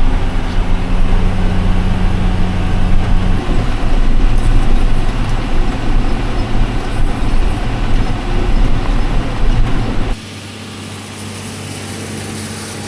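Tractor engine running loud and steady during hay raking. About ten seconds in the sound drops abruptly to a quieter, steady hum.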